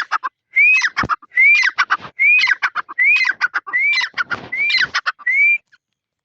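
A tetar (francolin) calling: a loud, rapidly repeated phrase, about seven times. Each phrase is a rising-then-falling whistle followed by a quick run of clipped notes. The calling cuts off abruptly about five and a half seconds in.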